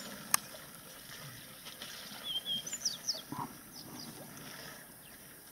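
Quiet bush ambience with a few short bird chirps, some falling in pitch, between about two and three seconds in. A single sharp click comes near the start.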